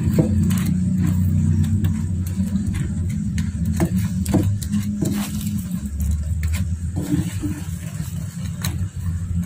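A wooden spatula taps and scrapes against a nonstick frying pan while stirring cassava cakes in boiling palm-sugar syrup: scattered light knocks. Under them runs a steady, loud low rumble, engine-like.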